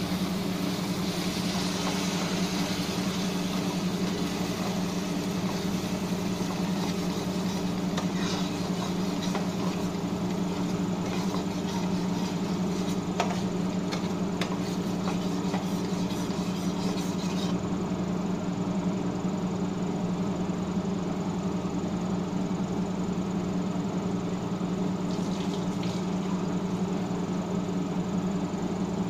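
Tomato puree sizzling and bubbling in a hot non-stick frying pan of fried masala, with a spatula scraping and stirring through it; the sizzle drops away a little past halfway. A steady low machine hum runs underneath throughout.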